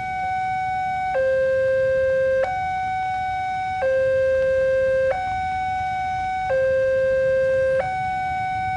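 Railway level-crossing warning alarm sounding a steady two-tone electronic hi-lo pattern, switching between a lower and a higher tone about every 1.3 seconds, while the crossing is closed for an approaching train.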